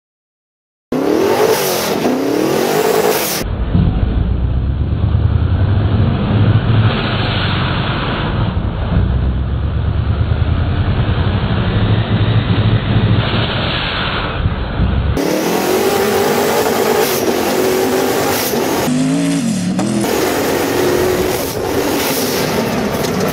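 Sand rail's high-horsepower twin-turbo racing engine running hard as the car drives over the dunes, heard from inside the cockpit. It starts about a second in, its pitch rising and falling with the throttle, with a heavy low rumble through the middle stretch.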